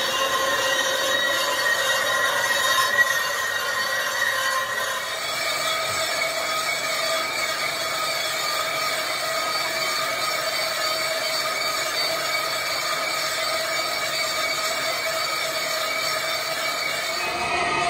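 Metalworking machine running with a steady, high metallic whine that steps up in pitch about five seconds in and shifts again near the end, with a low rumble coming in.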